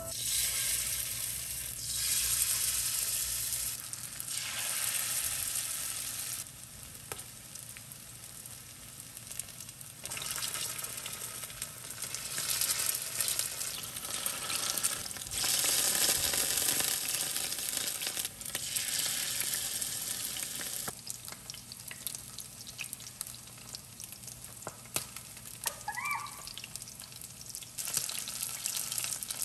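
Battered chicken pieces frying in a pan of shallow oil: a dense, steady sizzle that rises and falls in level several times as pieces are added and turned.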